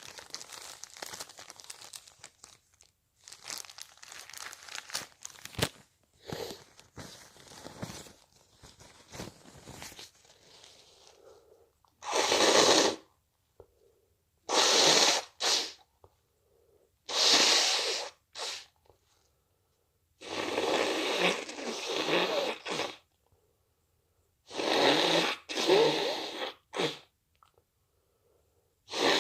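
Crinkling and rustling of a paper tissue, then a person blowing their nose hard into it about five times, each blow a loud gusty rush lasting one to three seconds.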